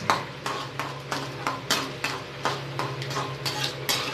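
A slotted metal spatula stirs and scrapes in a metal kadai, making sharp clicks about three times a second. Under the clicks is a light sizzle of mustard seeds, urad dal and chana dal frying in sesame oil for a tempering.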